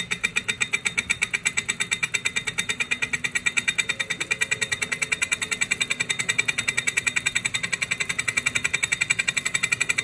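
Wahoo Kickr smart bike trainer running with an abnormal noise: a fast, even mechanical ticking, several beats a second. It is the fault sound that riders cure by re-tightening a bolt behind the trainer's side cover.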